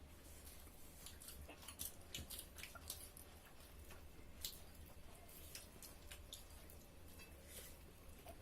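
Faint eating sounds: scattered soft clicks and smacks of people chewing a meal, over a low steady hum.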